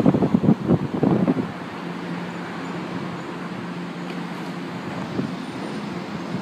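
São Paulo Metro train pulling into the platform, its running gear clattering for about a second and a half as it comes to a stop. It then stands with a steady hum from its onboard equipment.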